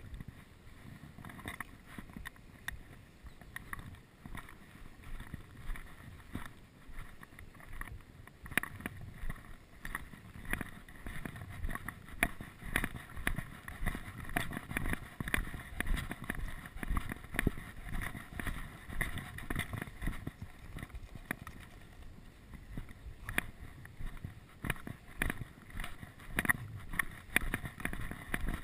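Strong, gusty wind buffeting the microphone, with frequent irregular footsteps on a gravel track.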